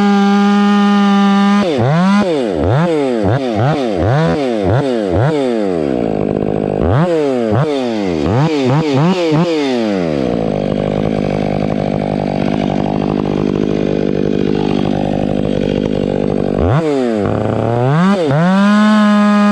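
Stihl 500i fuel-injected two-stroke chainsaw running at a high, steady pitch, then revved up and down rapidly many times. From about ten seconds in it drops to a lower, steady pitch with a rough rasping noise for about six seconds, the saw working under load as it cuts through a log, then it revs back up to its high pitch near the end.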